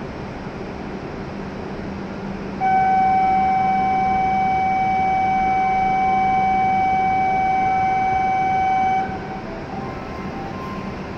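A steady electronic warning tone at a Shinkansen platform, held at one pitch for about six seconds before cutting off, over the station's steady hum.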